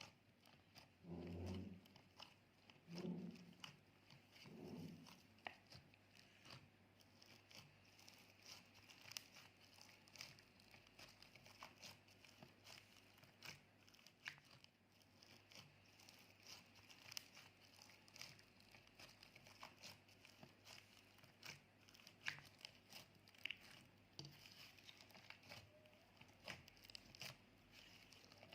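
Faint, scattered small clicks and crackles of clear slime being handled, with three soft low thuds in the first five seconds.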